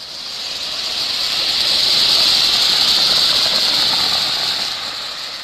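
Small pot-shaped ground fountain firework (matka anar) spraying sparks with a steady hiss that swells over the first two seconds and eases off near the end.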